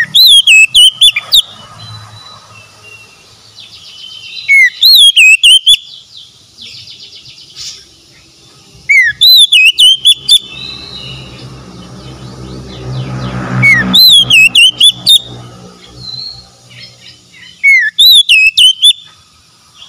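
Oriental magpie-robin singing loud, clear whistled phrases. The same phrase comes five times, about every four to five seconds; each opens with a short rising note and runs into a quick series of swooping whistles.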